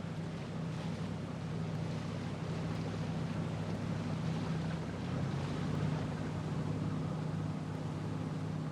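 Motorboat engine running steadily as the boat heads out, with a wash of water and wind noise over it. The engine gets a little louder about halfway through.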